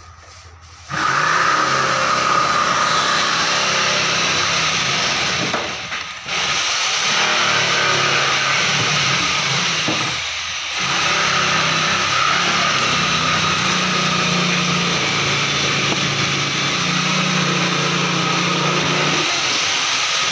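Workshop machinery running steadily with a constant whine over a low hum. It comes up about a second in and dips briefly twice.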